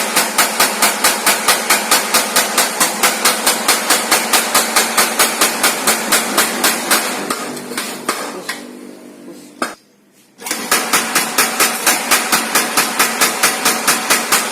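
Blacksmith's mechanical power hammer striking metal in a fast, even rhythm of about four to five blows a second. The blows fade out about two-thirds of the way through, stop briefly, then start again at full strength.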